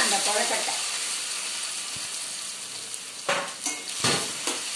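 Mini steamed rice-flour dumplings sizzling in a steel pan of hot sesame oil with mustard seeds, urad dal and curry leaves, the sizzle slowly fading. A spoon scrapes and knocks against the pan a few times near the end as they are stirred.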